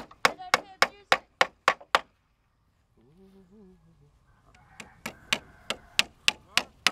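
Hammer striking a plywood frame in quick, even blows, about three a second. The blows stop for about two and a half seconds, then start again.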